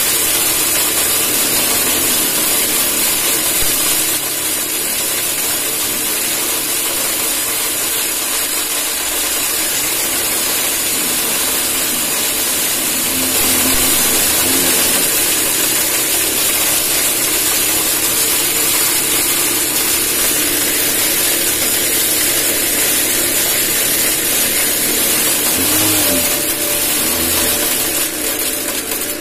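Homemade corn cracker made from a bread tin, its electric motor running and crushing dried corn kernels into feed grit, a steady loud hissing, grinding noise.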